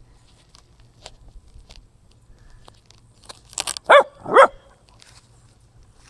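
A dog barks twice in quick succession about four seconds in, amid faint handling clicks and rustles.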